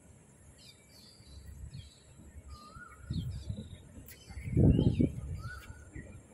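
Birds calling: a scatter of short high chirps and a warbled call that comes twice. A low rumble swells about three seconds in and is loudest around four and a half to five seconds, then fades.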